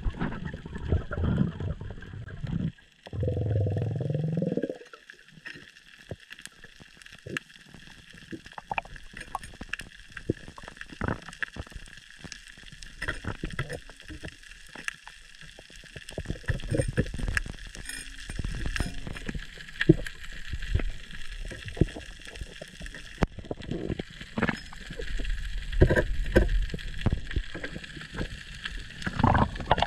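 Underwater sound on a shallow coral reef, heard through a submerged camera: dense, scattered clicking and crackling throughout. There is a short muffled gurgling rush about three seconds in.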